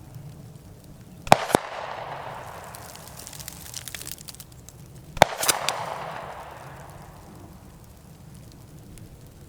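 Two gunshots from a .45 ACP 1911 pistol, about four seconds apart, heard from about 150 yards downrange. Each is a sharp crack followed a quarter second later by a second pop and a long rolling echo.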